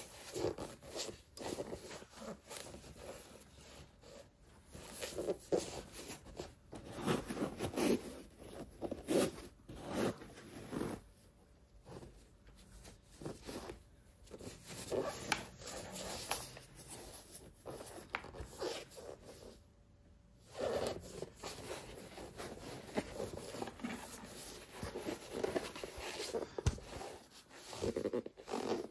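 Irregular rustling and scraping handling noises of packaging and new basketball shoes being unboxed and handled, in uneven bursts with a couple of short lulls.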